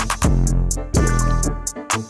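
Background music with a steady beat: deep bass thumps with clicking hi-hats and a melody over them.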